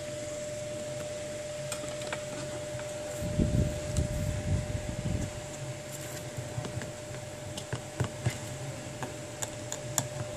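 Scattered light clicks and taps of metal tweezers and a small screwdriver against the metal frame and parts of an opened iPhone 6 Plus, with some handling rumble around the middle, over a steady faint hum.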